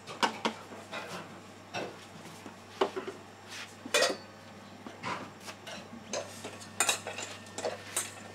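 A spoon clinking and scraping against a dish while a dog's food is stirred and served, in irregular clinks and knocks.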